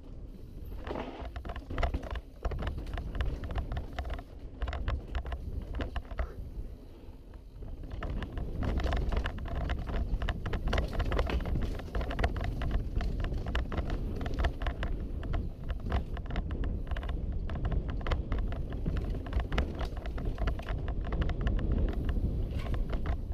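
Wind rushing over a head-mounted camera's microphone as a Specialized Enduro Expert mountain bike descends a dirt trail at speed, with tyre rumble and rapid rattles and knocks from the chain and frame over the bumps. It gets louder about eight seconds in.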